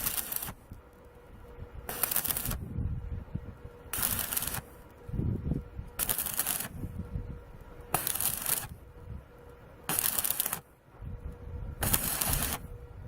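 IMAX 120 welder laying short weld bursts on a Subaru Sambar muffler: seven crackling bursts of about half a second each, evenly spaced about two seconds apart, as in stitch or tack welding. A faint steady hum runs underneath.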